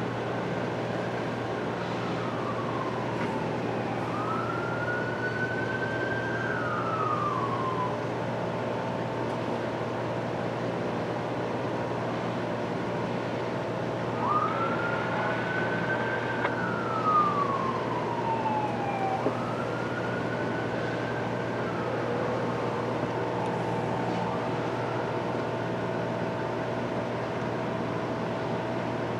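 Emergency vehicle siren wailing in slow rising and falling sweeps, several cycles, dying away about three-quarters of the way through, over a steady low hum.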